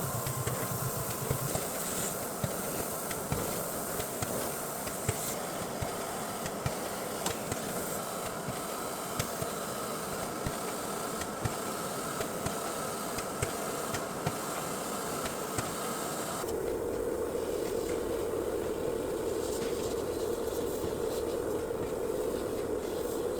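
Full-colour powder 3D printer running: a steady mechanical noise with irregular light clicks, which about 16 seconds in gives way abruptly to a steadier, lower hum.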